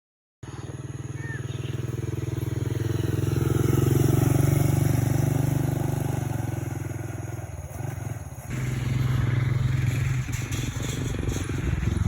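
A small engine running, growing louder over the first four seconds and then easing off, with an abrupt change about eight and a half seconds in to a similar engine sound.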